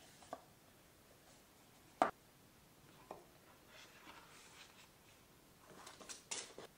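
Faint handling of a cardboard smartphone box: a sharp tap about two seconds in, soft paper rubbing, then a run of scraping as the box lid is slid off near the end.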